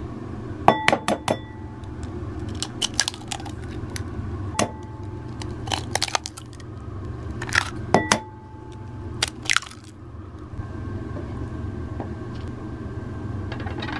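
Eggs cracked against the rim of a ceramic bowl and opened into it: a series of sharp taps and shell crackles, several of the taps ringing briefly off the bowl. Near the end a kitchen knife chops cabbage on a wooden cutting board.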